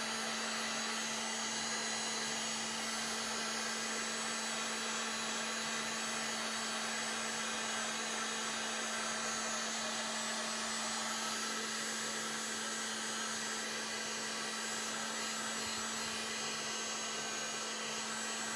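Hot air gun running steadily, a constant rush of air with a low hum, blowing hot air over heat-shrink tubing on a cable.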